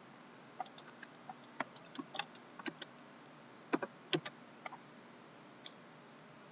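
Irregular light clicks of typing on a computer keyboard, a dozen or so taps spread over about five seconds, then stopping.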